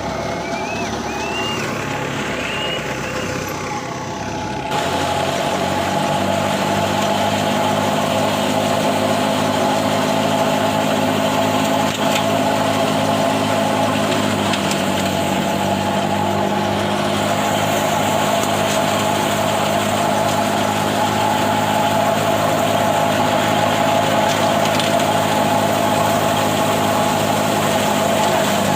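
Combine harvester's engine running steadily. About five seconds in it suddenly becomes louder and fuller, then holds an even drone.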